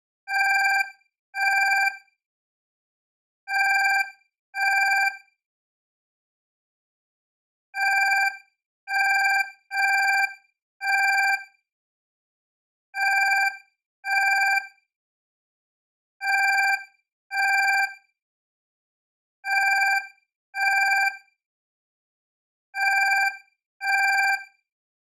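Alarm clock ringing: short rings of about half a second each, mostly in pairs a second apart, with one run of four near the middle, separated by pauses of about two seconds.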